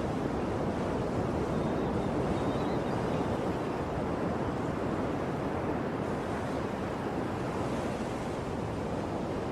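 Sea waves washing ashore: a steady, continuous rush of surf.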